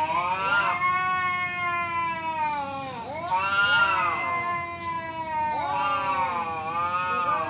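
Two tomcats caterwauling at each other, a threat display challenging to fight: long, wavering yowls that rise and fall in pitch, the two voices overlapping and swelling in waves.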